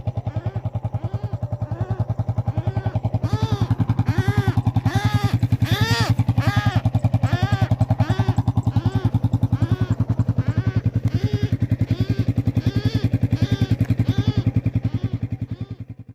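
Watercock calling: a long, even series of hollow, gulping notes, a little under two a second, over a fast low throbbing, cutting off suddenly at the end.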